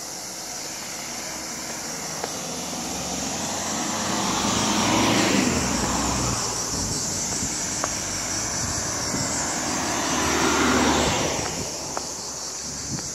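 Two cars drive past one after another, the first about five seconds in and the second near eleven seconds; each swells and fades as its engine and tyres go by. Behind them runs a steady high buzzing of insects.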